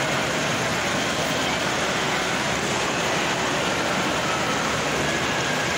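Steady background din of a busy shopping mall: an even wash of noise that holds at one level throughout.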